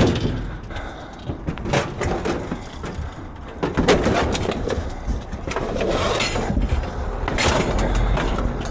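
Scrap metal being handled and loaded onto a truck: a few sharp knocks and clanks with scraping and shuffling between them.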